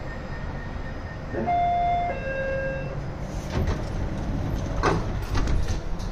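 Baltimore Metro subway train standing at the platform with a steady hum. About a second and a half in, a two-note descending door chime sounds, followed by several sharp knocks as the sliding doors close.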